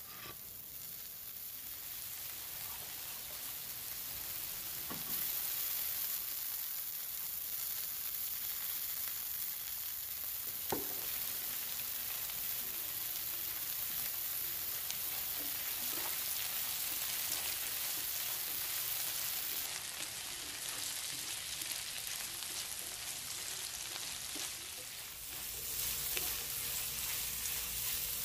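Sliced onions, garlic and red bell pepper frying in hot oil in a cast-iron skillet, a steady crackling sizzle. A few brief knocks come along the way, the sharpest about eleven seconds in. Near the end a spatula stirs the vegetables around the pan.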